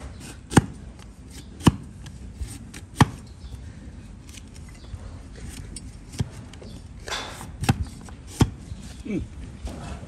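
Long flat hoof-trimming blade pushed down through a donkey's hoof horn, each cut ending in a sharp crack against the wooden block beneath: about six cuts, spaced irregularly, with a short scrape about seven seconds in.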